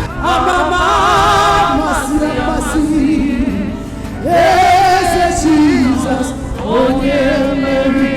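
Gospel praise-and-worship singing over backing music, in long phrases with held notes sung with vibrato.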